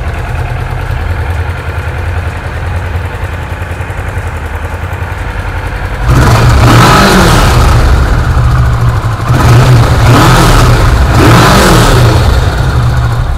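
Kawasaki Vulcan S's 649 cc parallel-twin engine on its stock exhaust, idling steadily for about six seconds, then revved several times, its pitch rising and falling with each blip of the throttle.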